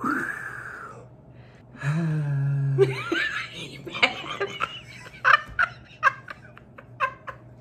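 Hearty laughter, mainly a woman's: a long held vocal cry about two seconds in, then a quick run of short laugh bursts from about four seconds on.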